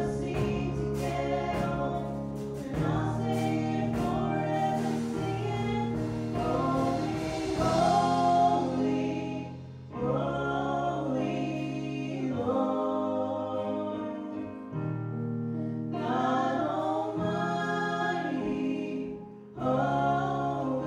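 Live Christian praise-and-worship song: a woman sings the lead with a band under her, over sustained chords. The sung phrases break briefly about ten seconds in and again near the end.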